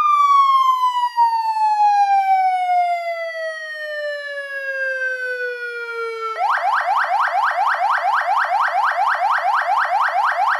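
Vixen VXS7920 electronic siren on its auto setting, through its 100-watt speaker: a wail tone falling slowly in pitch for about six seconds, then switching abruptly to a rapid rising sweep repeated about five times a second.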